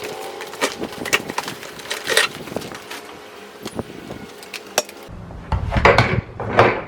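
Clicks, knocks and plastic clatter as a 12-gallon Ridgid shop vac is handled and its head is taken off the drum for emptying, with a heavier burst of clatter near the end.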